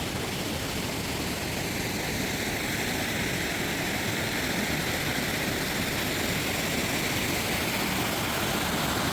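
Steady rushing of a creek waterfall, an even noise that does not let up.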